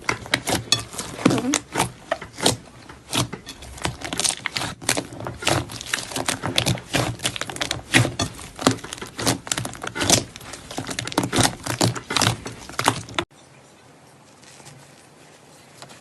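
Slime being squeezed and worked by hand, making a rapid, irregular string of sticky clicks and pops. It cuts off suddenly about 13 seconds in.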